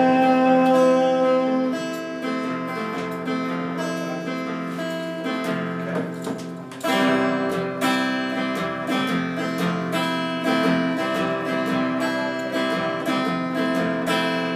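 Acoustic guitar strummed steadily in an instrumental passage. A held note dies away over the first two seconds, and the strumming comes back louder about seven seconds in.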